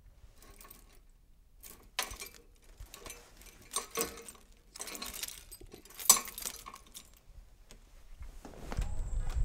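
Keys jingling and clinking against a door lock while it is worked by hand, in several short bursts. A low rumble comes up near the end.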